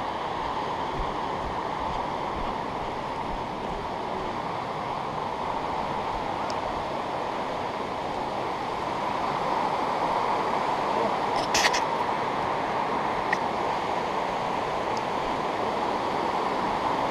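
Steady rushing of river rapids on the Sand River, growing slightly louder about two-thirds of the way through, with one sharp click near the middle.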